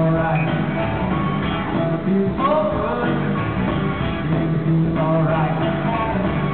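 Live blues-rock band playing electric guitars over bass and drums, with gliding, bending notes about two and a half seconds in.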